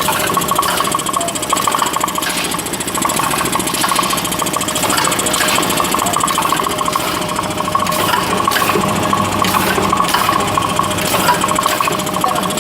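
Automatic packing machine running with a fast, steady mechanical chatter and a ringing tone. Sharper clicks come in the second half.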